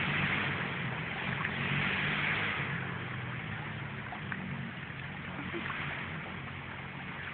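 A motorcycle engine running steadily with a low hum that slowly fades, over the even rush of a shallow creek.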